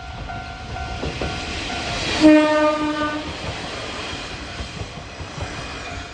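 Japanese level crossing warning bell ringing as a Kominato Railway diesel train passes. About two seconds in, the train sounds its horn once for about a second, and its wheels clatter over the rails.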